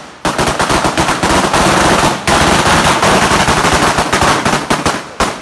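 Firecrackers going off in rapid succession, a dense rattle of bangs for about five seconds with a short break about two seconds in.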